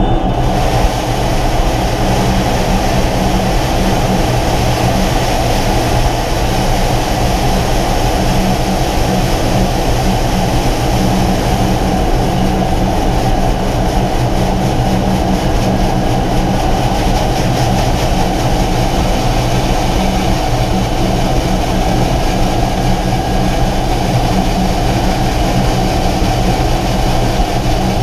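Air Tractor 802's turboprop engine and propeller heard from inside the cockpit: a steady, unchanging drone with a constant hiss over it.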